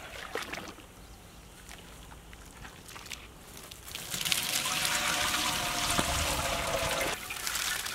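Water trickling and pouring as it drains out of a bowl of rice, turning into a louder, steady pour about four seconds in.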